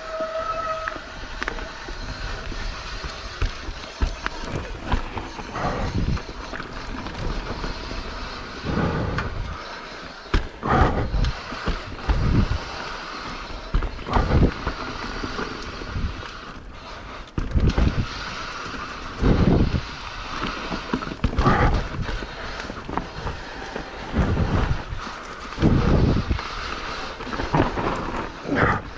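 Mountain bike ridden along a dirt trail: steady tyre and rolling noise, with a loud puff every couple of seconds.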